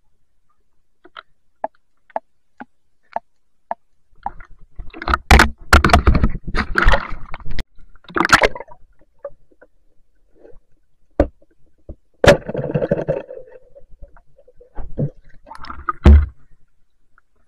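Shallow river water splashing and sloshing as someone wades and moves through it, after a few soft ticks. A sharp knock comes about twelve seconds in. Near the end there is loud splashing from a speared fish thrashing in the water.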